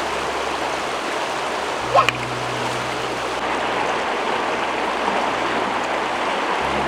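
Steady rushing of water, from rain or a nearby river, with a brief rising chirp about two seconds in.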